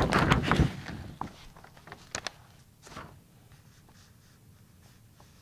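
Handling noise from paper and objects being moved: a loud rustle in the first half-second or so, then scattered light taps and clicks and another short rustle about three seconds in, dying away to quiet.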